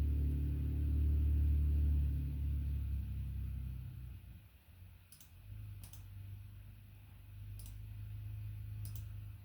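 A low hum, loud for the first few seconds and fading about four seconds in to a fainter steady hum. In the second half a few sharp computer clicks sound, about four in all.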